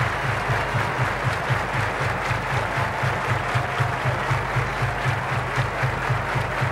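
Large stadium crowd cheering and applauding over a fast, steady low beat.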